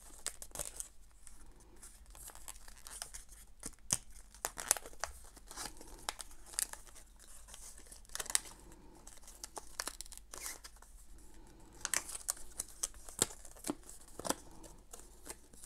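White packaging wrap being peeled and crumpled off a new remote control: irregular spurts of crinkling and small tearing crackles.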